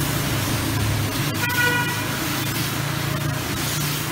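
Pressure washer spraying water over a motorcycle: a steady hiss of the jet over a low, steady hum. A short horn beep sounds about a second and a half in.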